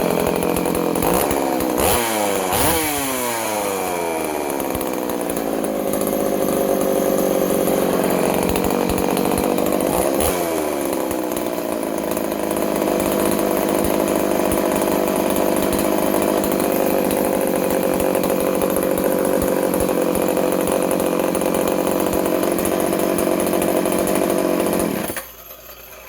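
Vintage Poulan 3400 two-stroke chainsaw, ported, running without its bar and chain. It is revved up and allowed to drop back a few times near the start and once about ten seconds in, then runs steadily until it is switched off near the end. It sounds like an animal, strong and healthy.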